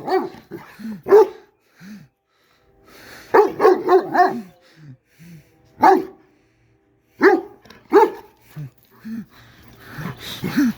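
Big dog throwing a vocal tantrum: a string of short barks and yowling, pitch-bending calls, coming singly or in quick runs with silent gaps between them.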